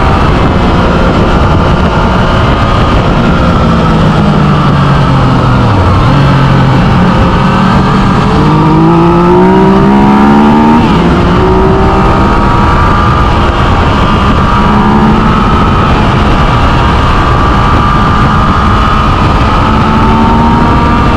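Yamaha Tracer 900's 847 cc inline three-cylinder engine under way, over heavy wind and road rush. The engine note drops about four to six seconds in, then climbs through two gears as the bike accelerates, before settling to a steady cruise.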